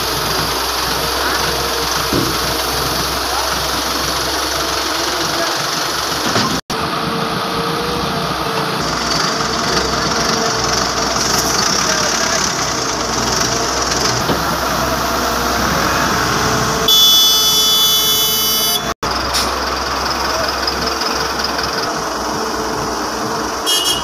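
Heavy diesel engines of an excavator and dump trucks running steadily. A truck horn sounds once, for about two seconds, near the end.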